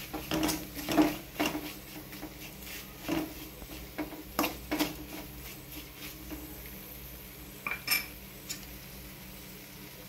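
Metal spoon scraping and clinking against a metal kadai while thick pickle masala in oil is stirred. The scrapes and clinks come irregularly, most of them in the first half and a few more near the end.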